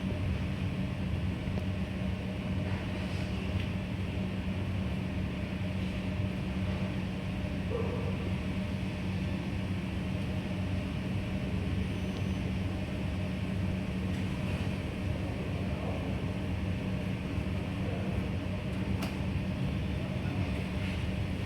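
Steady low mechanical hum with a constant tone, like a running motor, and a few faint small clicks.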